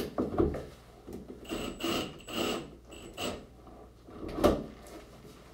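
Cordless drill run in a handful of short spurts against a tiled shower wall, then a single knock about four and a half seconds in.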